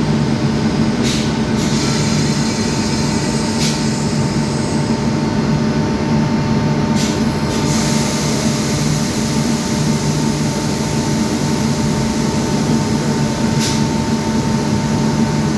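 Kirloskar air compressor running with a steady mechanical drone and hum. Four short, sharp sounds rise above it.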